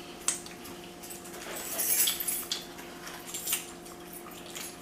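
Close-up eating sounds of chicken wings being chewed, with lip smacking and scattered clicks from handling food and containers. A louder noisy stretch comes about two seconds in, over a steady low hum.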